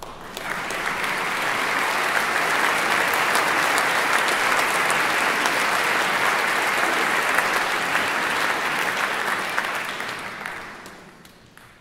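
Audience applauding, swelling up in the first second or so, holding steady, then dying away near the end.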